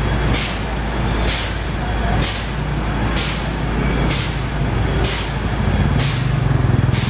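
Fire engine with its turntable ladder raised, its engine running steadily, with a short burst of hissing air repeating about once a second.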